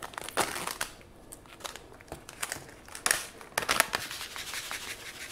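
Plastic pouch of PE fish-food pellets rustling as it is handled and opened, in irregular rustles with a few sharper clicks about three seconds in.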